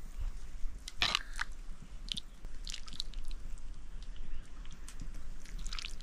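A person eating soup noodles: irregular chewing and short mouth sounds, the loudest about a second in.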